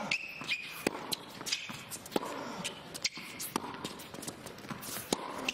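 Tennis rally: repeated sharp pops of rackets striking the ball and the ball bouncing on the court, with reverberation from a large indoor arena.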